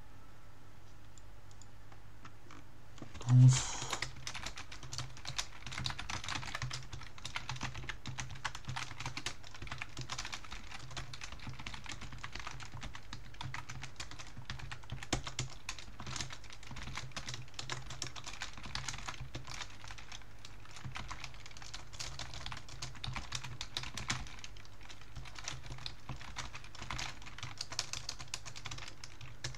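Fast typing on a computer keyboard: a dense, irregular run of keystroke clicks. It starts a few seconds in, right after a single loud thump.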